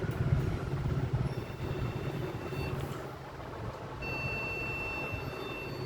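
HP desktop PC's motherboard buzzer sounding long, steady high-pitched beeps on power-up, the fault warning of a computer that gives no display. Constant low rumble underneath.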